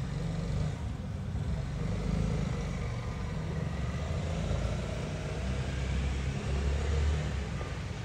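Low, steady rumble of city traffic, with no distinct bird calls standing out.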